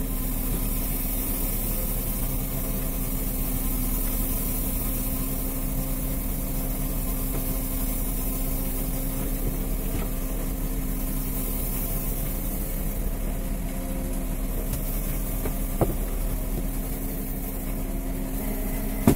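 A small fishing boat's engine running steadily with a constant low hum while the longline is hauled in over the line hauler. There are two short knocks, one near the end and one at the very end.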